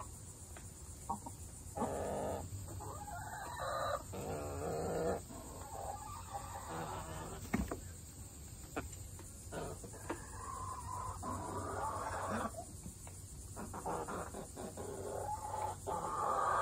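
Australorp hens clucking and calling in several drawn-out bouts, with a few short clicks in between.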